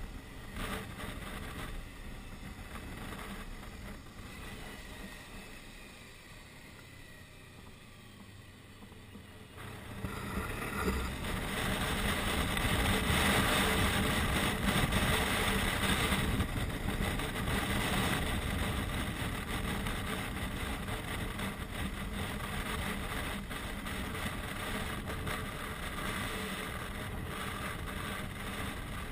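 Motorcycle engine running with wind rushing over the microphone while riding. The sound is quieter for several seconds, then grows louder from about ten seconds in.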